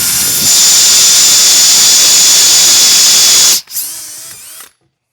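Electric drill running under load, driving a large cutter bit into a pool ball. The ball's material melts and gums up the bit as it cuts. The trigger is released about three and a half seconds in, and the drill whirs down briefly before stopping.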